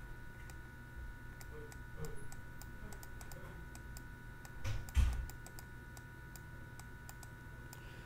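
Faint clicking and light tapping of a stylus writing on a tablet, over a steady low electrical hum, with one soft thump about five seconds in.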